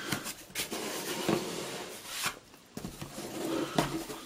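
A cardboard box being handled and slid across carpet: scraping and rubbing with a few light knocks.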